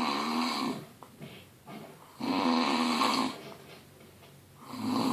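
Loud snoring, one snore about every two and a half seconds: one dies away near the start, another comes about two seconds in, and a third begins near the end, each lasting about a second.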